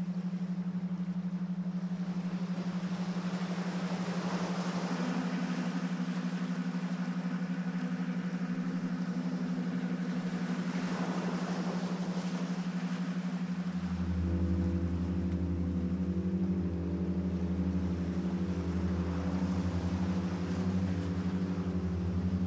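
Ambient drone music: a steady low hum with slow swells of airy noise rising and fading, and a deeper drone joining about two-thirds of the way through.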